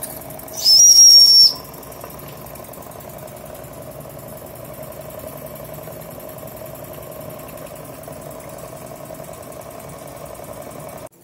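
Jensen 75 live steam engine's boiler whistle blown once, a high shrill tone with steam hiss lasting about a second, starting about half a second in. Then the steam engine running steadily until the sound cuts off near the end.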